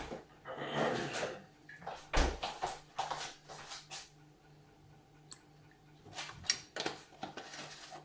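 Knocks, clicks and clatter of a plastic coffee press cup and a milk container being handled while milk is added, with one heavier thump about two seconds in.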